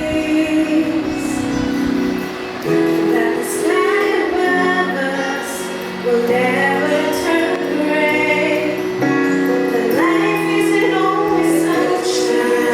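A gospel vocal group, female voices among them, singing in harmony, holding long chords that change every few seconds.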